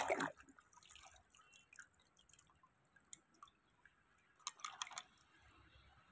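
Faint water sounds from a plastic toy dump truck being swished in shallow muddy water and lifted out dripping, with a short burst of splashing about four and a half seconds in.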